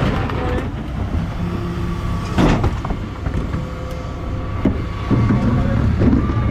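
Refuse truck (bin lorry) running with a steady low rumble, with clatters and knocks from wheelie bins being handled at its bin lift, the loudest about two and a half seconds in.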